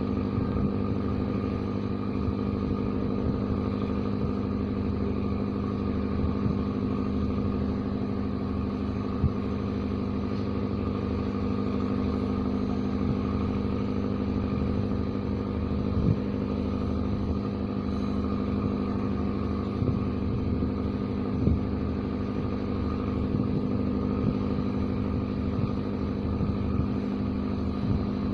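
An engine running steadily at a constant speed, with a few light knocks now and then.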